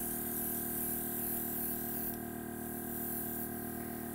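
Airbrush hissing steadily as it sprays food colour onto a cake, over the steady hum of its small electric compressor. The hiss shifts about two seconds in.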